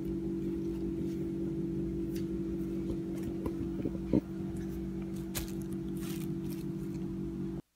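Faint rustles and small clicks from a flexible gorillapod-style tripod and its plastic packaging being handled, with a sharper click about four seconds in, over a steady low hum. The sound cuts off suddenly near the end.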